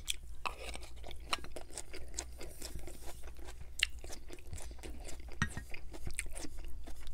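Close-miked chewing of a mouthful of shredded salad: crunching with many small wet mouth clicks.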